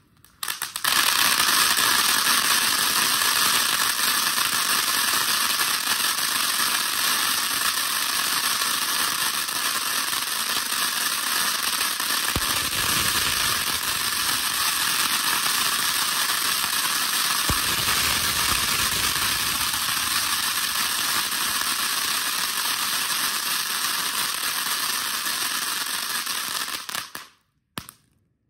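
Freedom Fireworks retro fountain firework burning: a loud, steady hiss of spraying sparks that starts about a second in and cuts off suddenly near the end.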